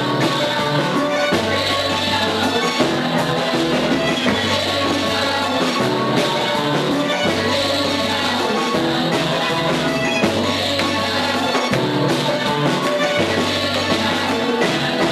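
A church choir sings through microphones over electronic keyboard accompaniment, with held bass notes that change every second or two.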